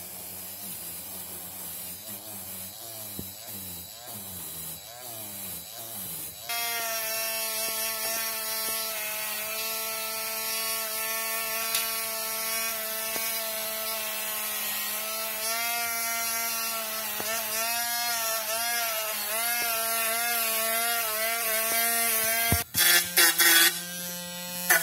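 Cordless mini rotary grinder running with a bristle brush against a wooden tabletop: its motor whine jumps louder and higher about six seconds in, and the pitch dips and wavers as the brush is pressed into the wood. Near the end the tool briefly cuts out, then runs again with a brass wire cup brush scrubbing an aluminium can, with a louder hiss.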